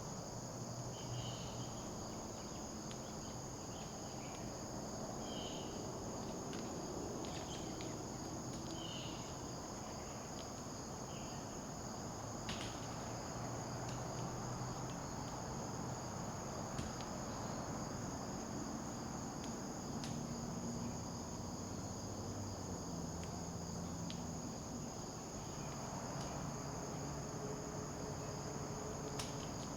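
Crickets chirping in a steady high-pitched chorus, with a few short separate chirps and a faint low hum underneath.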